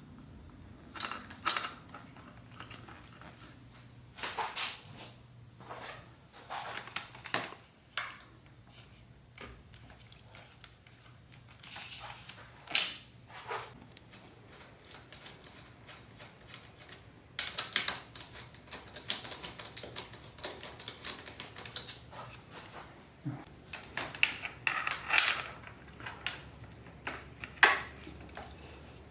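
Metal clamp parts, bolts and tools clinking, tapping and scraping at irregular intervals as a handlebar clamp is fitted by hand.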